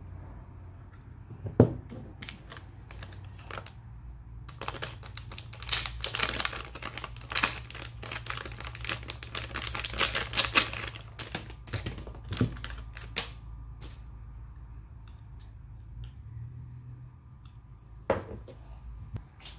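Clear plastic packaging bag crinkling and crackling in a dense run of clicks as a cable is pulled out of it, with a few light knocks as the cable and a plug-in power adapter are handled and set down on a table.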